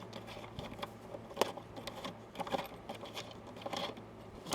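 Scattered light metallic clicks and clinks of a crescent wrench loosening the retaining nut on an RV storage compartment key lock.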